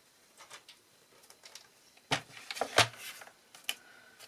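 Paper trimmer being set down and positioned on a craft mat: a few faint clicks, then several sharp plastic knocks about two to three seconds in, and one lighter knock near the end.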